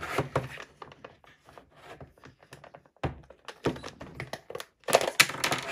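A plastic Cloudees cloud case being pried open and handled: a run of small plastic clicks and taps, with a louder cluster of knocks about five seconds in.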